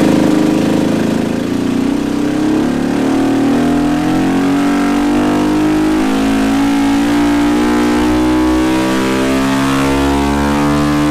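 Beta 480 single-cylinder four-stroke dirt bike engine running under load on a dyno. Its pitch climbs slowly and steadily through a pull after easing off about a second and a half in.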